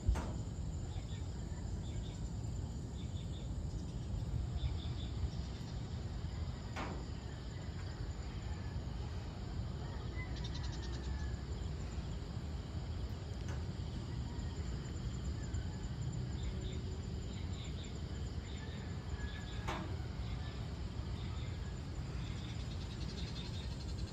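Evening outdoor ambience: a steady low rumble under faint insect chirring and a few scattered bird chirps, with three soft clicks along the way.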